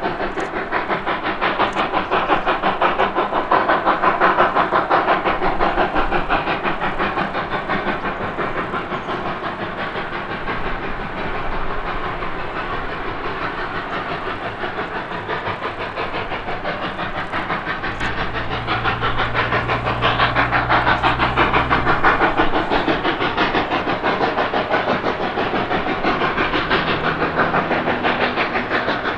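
Three-foot narrow-gauge steam locomotive working hard upgrade: its two cylinders exhaust in a rapid, steady beat of chuffs with steam hiss. A low steady hum joins in for a few seconds about two-thirds through.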